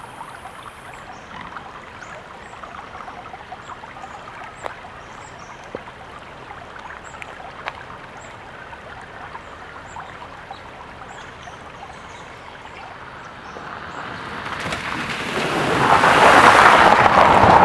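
Shallow creek water running over a rock shelf, a steady trickling hiss with faint ticks. About 14 seconds in, a car drives through the water crossing, a swelling splash of spray that peaks near the end.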